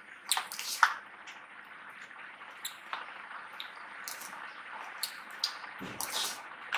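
Two people eating freezer-hard ice cream fast from plastic tubs: scattered sharp clicks and scrapes of metal spoons against the tubs, with mouth noises of eating.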